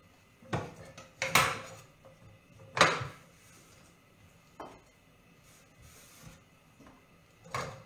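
Kitchen clatter: a handful of sharp knocks of utensils and produce set down and handled on a wooden cutting board and counter, the loudest about three seconds in, with quiet pauses between.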